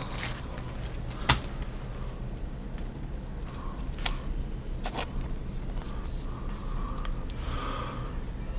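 Trading cards being handled and laid down on a wooden tabletop: three sharp light clicks a few seconds apart over a steady low hum.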